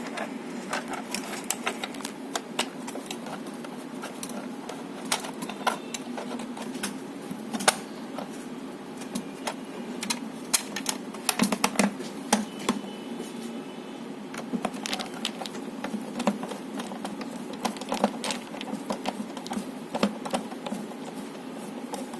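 Irregular small clicks and taps of a plastic light housing and its parts being handled, fitted together and screwed by hand, over a steady low hum.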